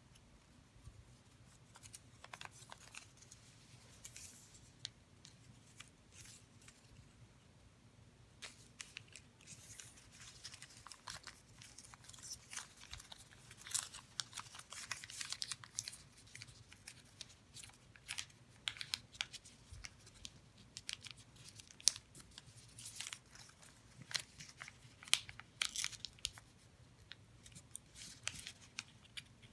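Origami paper being folded and creased by hand: irregular crinkling and rustling with sharp little crackles as creases are pressed, sparse at first, then busier.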